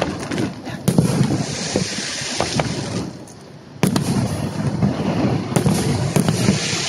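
Fireworks display: aerial shells bursting with sharp bangs at irregular intervals and crackling between them. A short lull about three seconds in ends with a loud bang, followed by several quick bangs and more crackle.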